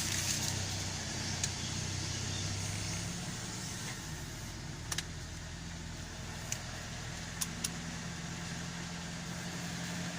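Mitsubishi Lancer's 4G13 inline-four engine idling steadily, with a few short sharp clicks over it.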